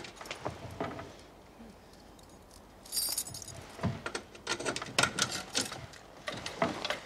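A bunch of keys jangling and clicking as one key after another is tried in the lock of a wooden cabinet. There are clicks at the start, a bright jingle about three seconds in, then a run of rattling clicks near the end.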